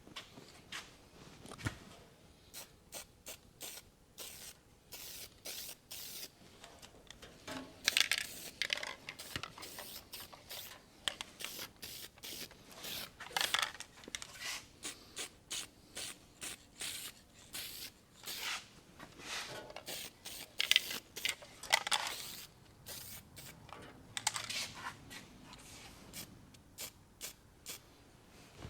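Aerosol can of self-etching weld-through primer being shaken, its mixing ball clicking rapidly, and sprayed in several short hisses.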